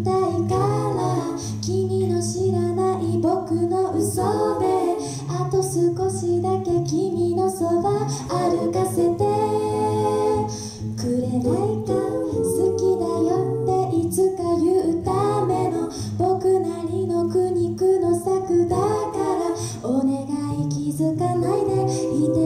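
Five-voice a cappella group singing a pop song: a female lead over sung harmonies and a low sung bass line, with vocal percussion ticking in the highs. About ten seconds in the voices hold a chord briefly before the groove resumes.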